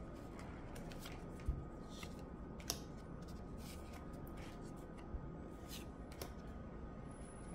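Pokémon trading cards handled one at a time, slid off a stack and laid down on piles. Faint papery swishes and a few light taps come at scattered moments over a low steady room hum.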